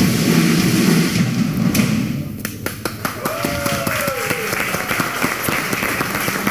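Studio music with a heavy drum beat stops about two seconds in. It is followed by a run of irregular sharp taps and thumps, like scattered claps or stomps, with a short gliding vocal whoop in the middle.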